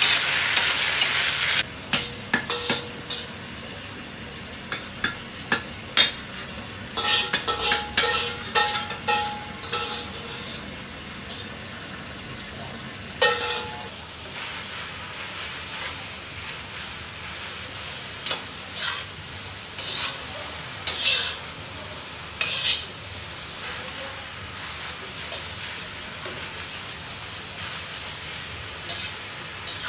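Stir-frying in a wok: a loud sizzle of hot, smoking oil for the first second or two, then a quieter steady sizzle as leafy greens are tossed. Throughout, a metal spatula scrapes and clanks against the wok, some scrapes ringing briefly.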